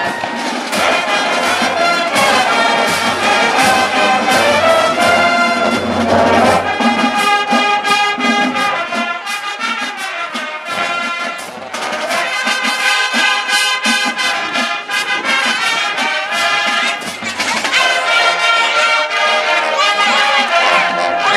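High school marching band playing: the brass section sounds loud sustained chords over sharp, regular percussion hits, easing off briefly about halfway through before coming back in full.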